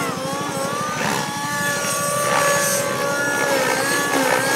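Synergy N5C model helicopter's Nova Rossi REX 57 glow engine running at flying speed with its rotor turning, the pitch gliding up and down as the helicopter is thrown through aerobatic manoeuvres.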